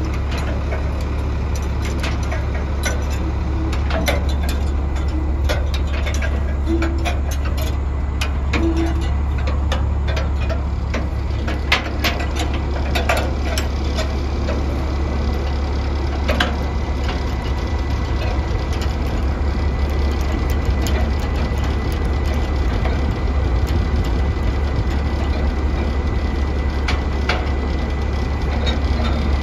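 Dump truck engine idling steadily, with scattered metallic clinks from the chains, shackles and wrench on the turnbuckles.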